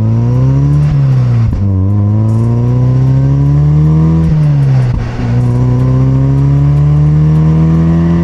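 NC Mazda Miata's 2.0-litre four-cylinder through a catless header, mid pipe and Super-Q muffler, accelerating through the gears. The engine note climbs, drops twice at gear changes with short pops between shifts, then climbs again.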